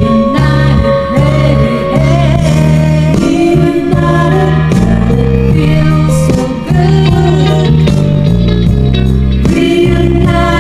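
Women singing into handheld microphones over instrumental backing music, with held, wavering notes.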